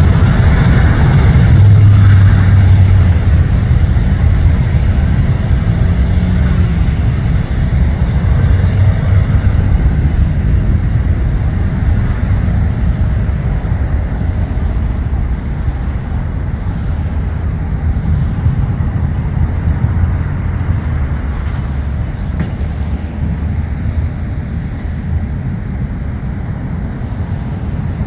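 Boeing 787-9 jet engines at takeoff power: a loud, deep rumble that slowly fades as the airliner rolls away down the runway.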